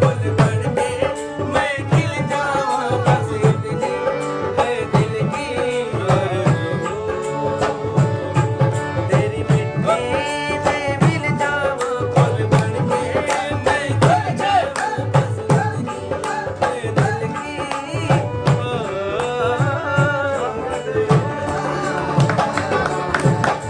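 Saraiki folk song (dhoray) sung over a steady hand-drum beat, the voice holding long, bending notes.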